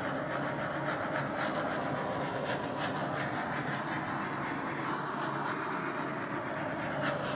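Handheld torch flame hissing steadily as it is passed over wet acrylic pour paint to pop surface bubbles.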